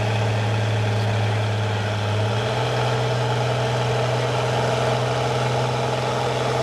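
International Harvester 1466's six-cylinder turbo diesel running steadily while the tractor pulls a sled, its engine note stepping up slightly in pitch about two and a half seconds in.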